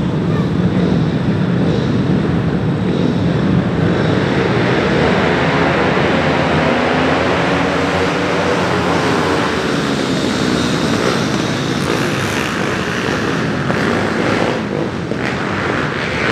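A pack of pit bikes, small dirt bikes, running together at the start gate. About four seconds in they rev up and accelerate away as a group, the engines rising and falling in pitch.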